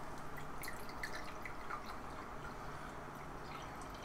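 Water poured from a plastic bottle into a drinking glass, heard as faint trickling and drips.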